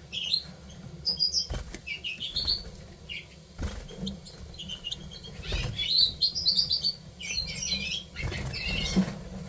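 Siberian goldfinches twittering in repeated bursts of short, rising chirps, with wing flutters and a few low thumps as a bird flaps about its perch.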